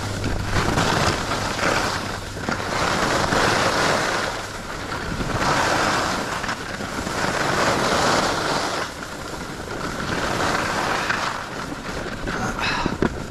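Skis carving turns on groomed snow: the scraping hiss of the edges swells and fades about every two seconds, with wind rushing over the microphone.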